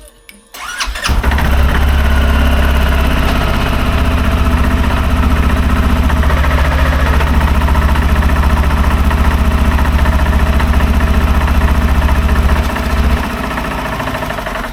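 An engine starts about a second in and runs loud and steady with a rapid low pulsing, then drops to a quieter run about a second and a half before the end.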